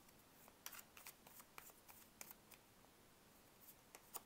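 Tarot cards being shuffled by hand, heard faintly as soft quick snaps and slides of card on card. They come thickest in the first two seconds or so, with a few more just before the end.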